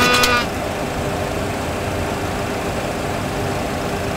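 Steady rumble and hiss of a Boeing 737 full flight simulator's cockpit sound, the simulated engine and airflow noise of an aircraft flying on one engine. A steady electronic tone cuts off about half a second in.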